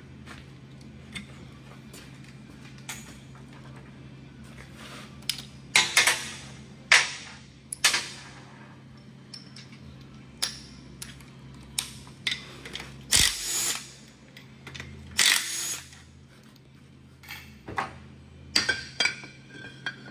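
A cordless power tool run in several short bursts, backing out the tail housing bolts of a 4L60E automatic transmission, with small clicks and knocks of parts and tools being handled between bursts. A steady low hum sits underneath.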